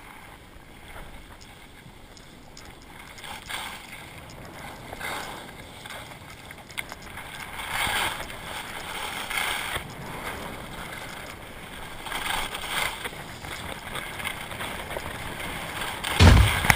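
Skis sliding and scraping over packed snow, swelling into a louder hiss with each turn, with wind rushing over the microphone. A sudden loud low rumble comes near the end.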